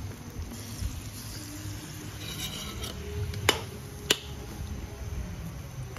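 Metal ladle and spatula stirring chicken pieces in thick sauce in a large metal wok, rubbing and scraping against the pan, with two sharp clinks of metal on metal about three and a half and four seconds in. A low steady rumble lies underneath.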